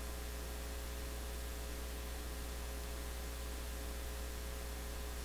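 Steady low electrical hum with a faint constant tone above it, unchanging throughout; no sound from the syringe mixing stands out.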